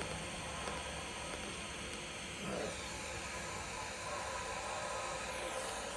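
TIG welder running with a steady hiss and a thin high whine, even in level throughout.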